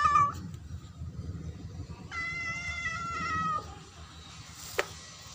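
Domestic cat meowing, begging for food: a short meow at the start, then one long meow about two seconds in. A single sharp click near the end.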